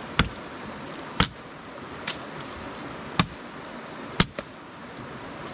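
Firewood being split with chopping blows into wood: five sharp strikes about a second apart, the third lighter.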